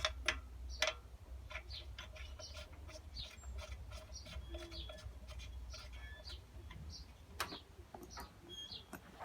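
Faint small clicks and scrapes of a spark plug being screwed by hand into the right cylinder head of an IZH Jupiter motorcycle engine, with short high chirps scattered through.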